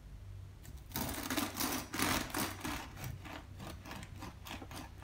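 Serrated bread knife sawing back and forth through a crusty sourdough loaf. It starts about a second in as a quick, even run of rasping strokes, about three a second.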